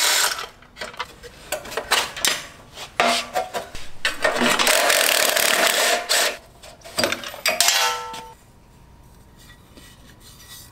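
Cordless power driver running in several short bursts and one longer run of about three seconds, spinning out the bolts that hold a motorcycle's exhaust mid-pipe. It stops about eight seconds in.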